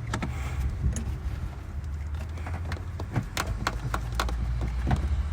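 A string of sharp clicks and metal clinks from hands and tools working on a diesel fuel filter housing, over a steady low hum.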